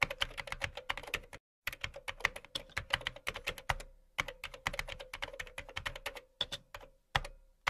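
Typing on a computer keyboard: quick, irregular keystrokes in runs, broken by brief pauses about one and a half, four and seven seconds in, over a faint steady hum.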